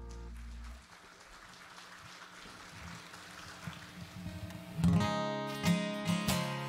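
A held chord dies away under a second in, leaving a few seconds of low room sound. About five seconds in, an acoustic guitar starts strumming a steady rhythm, opening a song.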